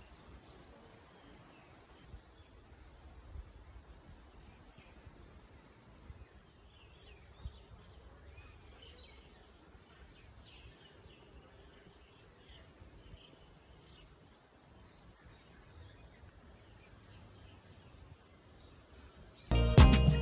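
Faint outdoor ambience: repeated high-pitched chirping from wildlife over a low rumble. Loud music begins abruptly near the end.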